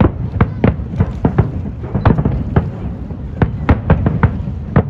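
Aerial fireworks shells bursting in rapid, irregular succession: a dense run of sharp bangs over a continuous low rumble.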